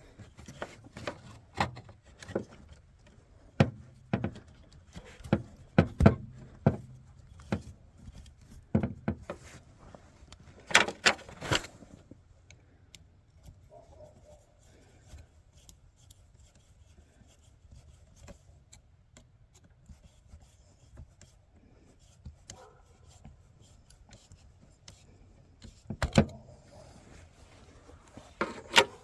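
Clicks, clinks and knocks of hand tools and fuel-line parts being handled while working on a diesel fuel filter setup: a busy run of sharp knocks over the first dozen seconds, a quieter stretch, then a couple more knocks near the end.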